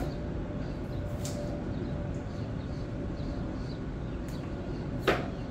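Knife cutting an apple on a cutting board: a few faint taps, then one sharper knock near the end, over a steady low background hum.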